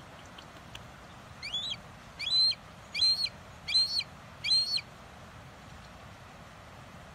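Red-shouldered hawk calling: a series of five loud calls about three quarters of a second apart, each lasting well under half a second and sliding up in pitch at the start, the first one softer than the rest.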